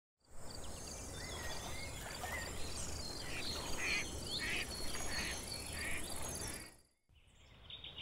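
Woodland birdsong: many overlapping chirps and short call phrases over a steady high insect drone. The sound cuts off suddenly about seven seconds in and gives way to quieter outdoor ambience.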